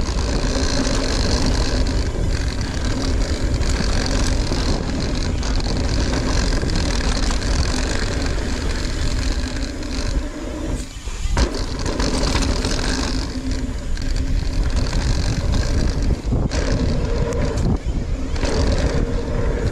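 Ibis Ripmo mountain bike riding fast down a bike-park trail: a steady rush of wind on the microphone with tyre noise on dirt. About eleven seconds in the noise drops away briefly, then comes back with a thump.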